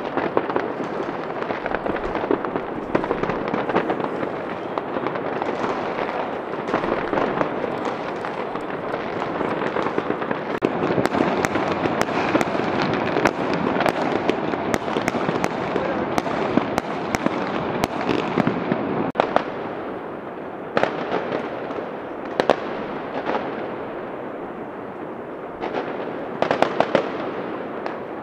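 Fireworks going off all around: a dense, continuous crackle of many bangs and pops. After about twenty seconds it thins out into separate, sharper bangs.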